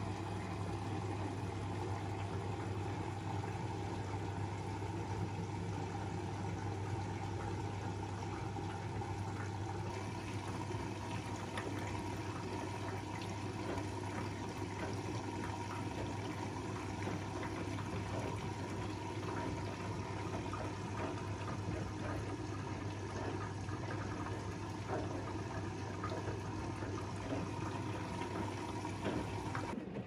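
Front-loading washing machine in its wash cycle, the drum tumbling wet clothes so the water sloshes over a steady low hum. It cuts off shortly before the end.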